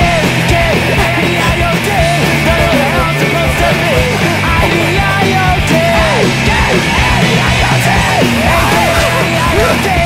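Loud rock soundtrack music with shouted singing over a driving beat.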